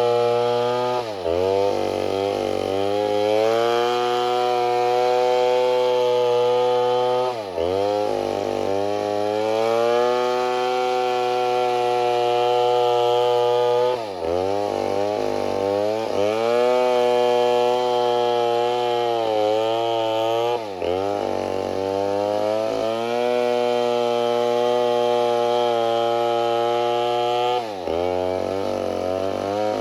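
Two-stroke chainsaw running at high revs, its pitch dropping sharply and climbing back five times, about every six and a half seconds.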